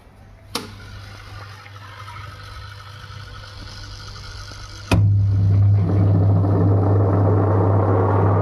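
Whirlpool washing machine with a low steady hum and a click about half a second in. After a second click near five seconds, the motor and gearbox start up much louder with a steady hum and a noisy mechanical running sound, the noise of a gearbox or bearing fault.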